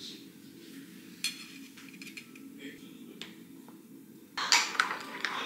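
Metal spoon scooping cocoa powder from a tin, with a few light clinks against the tin. About four seconds in it turns to louder scraping and clinking of the spoon in a ceramic mug.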